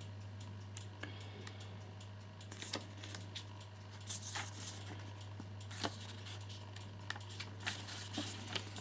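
Pages of a paper instruction booklet being leafed through: soft, irregular rustles and flicks of paper, over a steady low hum.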